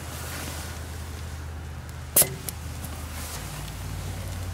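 A single sharp click about two seconds in as a brass air chuck on a red air hose is handled at a truck tire's valve stem, over a steady low hum.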